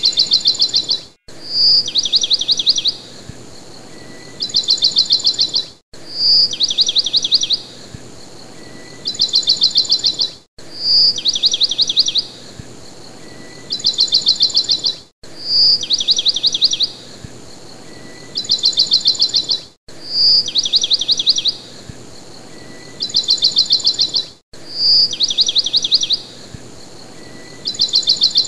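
Looped bird-like chirping: a short high note followed by two fast trills, the same pattern repeating about every four and a half seconds with a brief dropout where each repeat begins.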